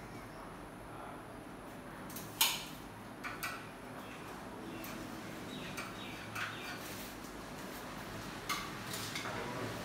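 Scattered light knocks and metallic clicks from hand tools working on an aluminium window frame, the sharpest about two and a half seconds in, with a few fainter taps after it.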